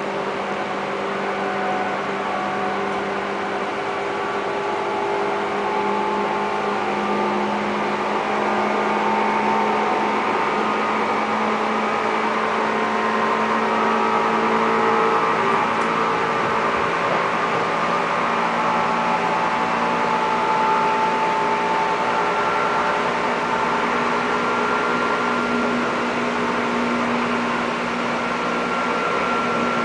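Running noise inside the cabin of a Seibu limited express 'Koedo' electric train: a steady rumble with a motor hum of several held tones that climb slowly in pitch toward the end.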